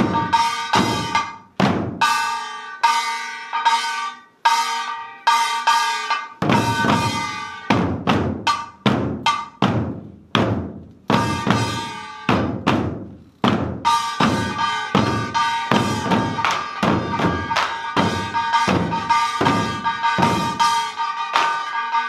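Korean buk barrel drums struck with sticks by an ensemble in a fast, driving rhythm, with a metal gong ringing over them. In the middle the gong drops out for several seconds and the drums play alone, then it comes back in.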